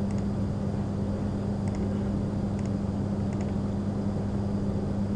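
Steady low electrical hum with background hiss from the recording setup, with a few faint clicks scattered through it.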